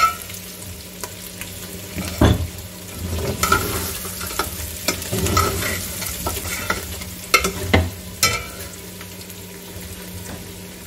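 Metal ladle scraping and knocking against an aluminium pot as mutton is stirred and fried with ginger-garlic paste, green chilli and julienned ginger, over a steady sizzle of hot oil. The clatter is irregular, strongest near the start, about two seconds in and around seven to eight seconds in, and it eases off near the end, leaving mostly the sizzle.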